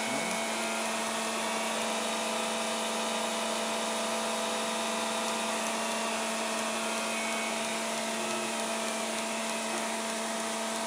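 Ketterer KM 120 vertical machining center with its spindle running at several thousand rpm: a steady motor whir with a low hum and several steady whining tones.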